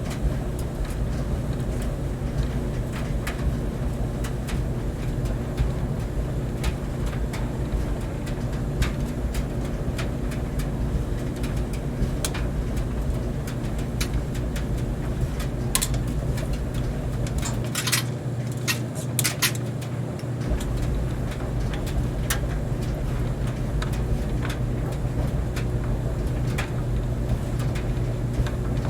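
Clothes dryer running steadily: a low drum rumble and motor hum, with scattered light clicks throughout. Past the middle, the deepest part of the rumble drops out for a few seconds while a cluster of sharper clicks sounds.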